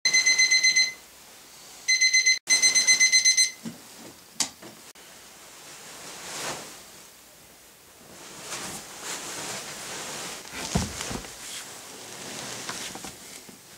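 Digital alarm clock beeping: rapid high-pitched beeps in two runs, the second longer, then stopping about three and a half seconds in. After it, faint rustling and a few soft knocks of someone moving about.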